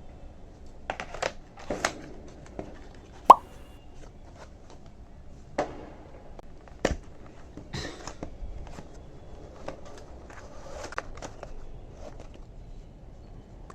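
Scattered clicks and knocks of objects being handled, with one sharp clink about three seconds in.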